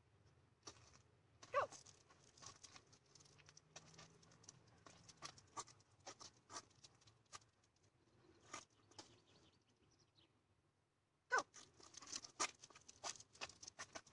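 Faint patter of running feet and a dog's paws on asphalt, with light scuffs and ticks, likely from a flirt pole's lure and cord, during a tug and chase game. Two louder short sounds stand out, about a second and a half in and again near the end, with a brief lull just before the second.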